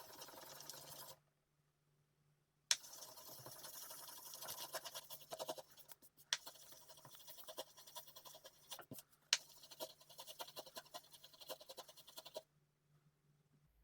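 2000-grit sandpaper rubbed by hand in quick back-and-forth strokes over the glass of a binocular lens: a dry, scratchy rasping, the fine-sanding stage for working scratches out of the glass. It pauses for about a second and a half early on, then resumes until it stops shortly before the end.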